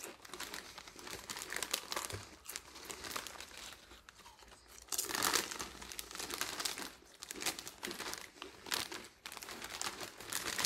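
A potato chip bag crinkling and rustling as it is handled, in irregular crackly bursts, loudest about five seconds in.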